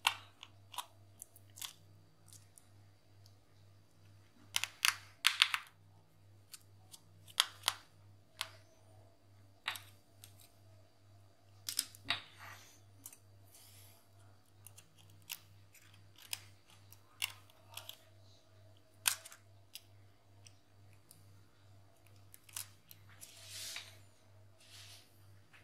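Scattered small clicks and taps of a precision screwdriver and tiny screws against the plastic and metal frame of a Huawei Y7 Prime phone being taken apart, with a short scraping stretch near the end as a plastic pry tool works along the phone's edge. A faint steady hum lies underneath.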